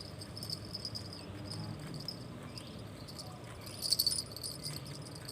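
Insects chirring steadily in a high, pulsing band, with a louder stretch about four seconds in.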